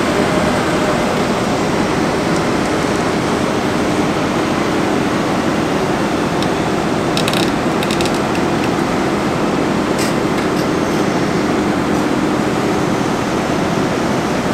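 Bauer GB 50 hydraulic diaphragm-wall grab rig running steadily with a constant hum. A few sharp metallic clinks come about seven to eight seconds in and again about ten seconds in.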